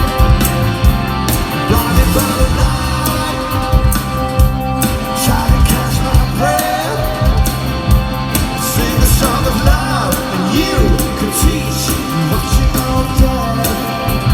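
Live rock band playing, with a steady drum beat under guitars and held tones, and singing coming in around the middle of the passage.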